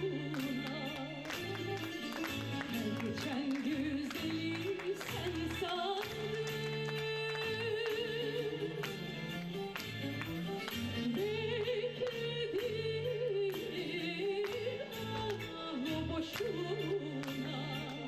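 Rebetiko song for a zeibekiko dance: a soprano sings long, wavering held notes over an instrumental accompaniment with a pulsing bass line and plucked strokes.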